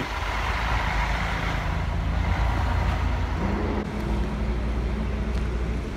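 Large semi-truck-chassis motorhome driving past close by: a steady deep engine rumble with tyre and road noise, and an engine tone coming in a little past halfway.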